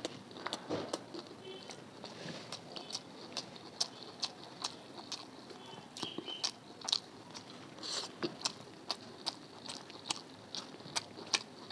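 Close-miked chewing of food by a person eating, with irregular short wet clicks of the mouth coming two or three times a second.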